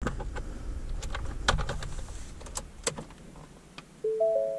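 A string of sharp clicks and knocks over a low rumble, then a rising three-note chime about four seconds in, its notes held.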